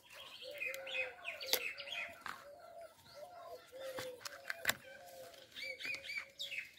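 Birds chirping and calling throughout, with a few sharp snaps as the tough outer bracts are pulled off a banana flower.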